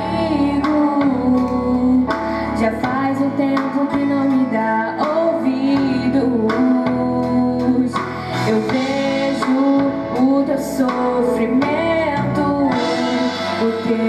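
Female vocals singing a gospel worship song in Portuguese over continuous instrumental accompaniment, the notes held and gliding.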